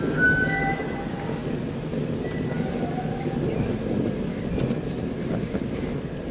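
Steady low rumble of a heritage steam train standing at the platform waiting to depart, with a few short faint high notes near the start and again about two to three seconds in.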